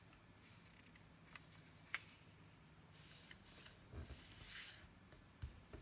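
Faint rustling and a few soft clicks of a sheet of paper being folded in half and creased.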